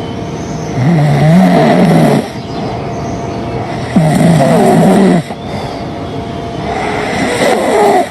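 Loud, rhythmic snoring: three long snores, each with a low, wavering pitch, about every three seconds, with quieter noise between them.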